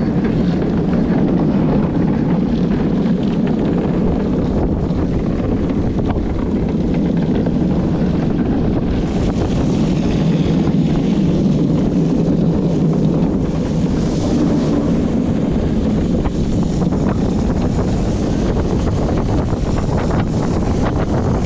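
Steady rumble of a luge cart's wheels rolling fast on a wet asphalt track, with wind buffeting the helmet-mounted microphone. A hiss from the wet surface grows stronger about nine seconds in.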